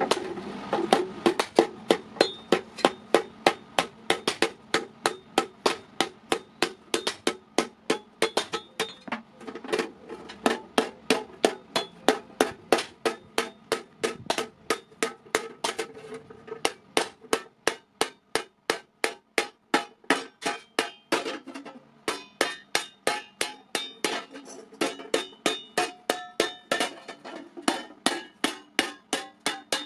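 Hand hammer beating a hot iron plate over a hollowed block, dishing it into a thali: an even run of ringing metal-on-metal blows, about two to three a second, with a few short pauses.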